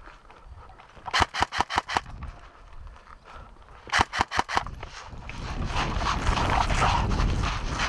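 Airsoft guns firing two short rapid bursts, about six shots each at roughly seven shots a second, the first just after a second in and the second about four seconds in. A rough rustling noise follows in the last few seconds.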